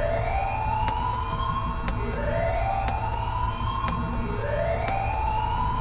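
Countdown-timer sound effects: a rising, siren-like whoop that repeats about every two seconds, with a sharp tick once a second over a steady low rumble.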